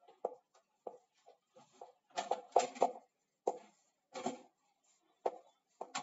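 Chalk writing on a chalkboard: a run of short taps and scratches as each symbol is stroked out, bunched more densely around the middle.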